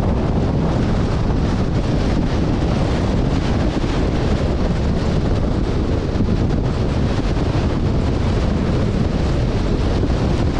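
Storm wind of around 60 mph or more buffeting the microphone: a loud, steady rush, heaviest in the low end, with no let-up.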